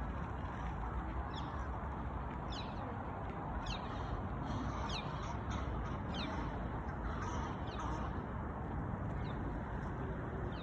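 Birds giving repeated short, high calls that fall in pitch, about one a second, over a steady rushing outdoor noise.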